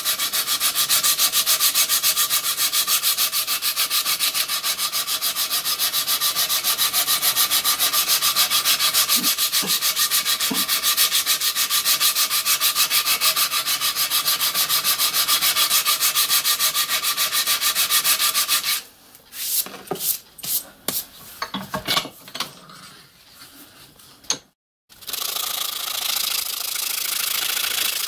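Hand file rasping in quick, even back-and-forth strokes on a solid cast iron cylinder block held in a vise, rounding it to a casting-like profile. Past the middle the filing stops for a few scattered clinks and knocks, then the rasping starts again near the end.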